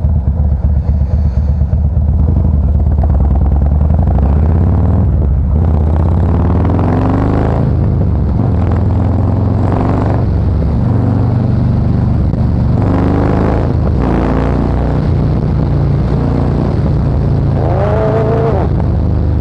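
Harley-Davidson Fat Boy Special's 103 V-twin running through a Supertrapp variable exhaust under way. It pulses at low revs for the first couple of seconds, then climbs in pitch and drops back several times as the bike accelerates through the lower gears.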